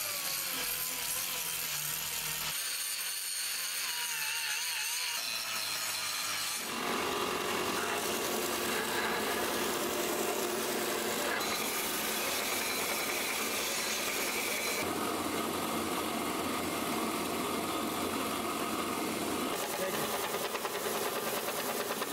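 Forged Damascus steel knife blank of 1084 and 15N20 being ground, first with an angle grinder and then on a belt grinder: a steady abrasive grinding sound made of several short takes whose tone changes abruptly every few seconds.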